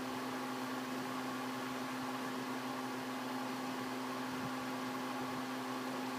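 A steady electrical hum with a constant hiss, unchanging throughout.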